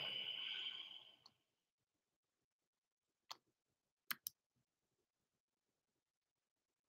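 Three faint computer mouse clicks in a quiet room, the last two close together, after a louder sound fades out in the first second and a half.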